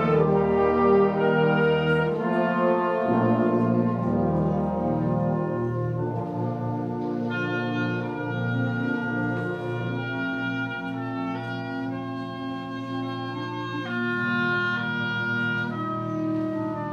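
Concert band playing a slow passage of long held brass chords, with tubas and euphonium in the bass. Loud for the first few seconds, then softer, swelling again about two-thirds of the way through.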